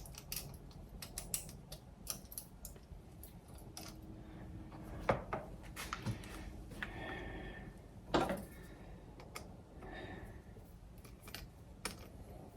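Irregular small clicks, taps and crinkles of hand work on a thin aluminium pop-can shim and the plastic mud flap, with two louder knocks about five and eight seconds in.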